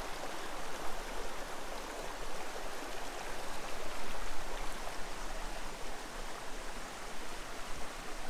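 Shallow, low-running woodland stream babbling over rocks: a steady rush of water.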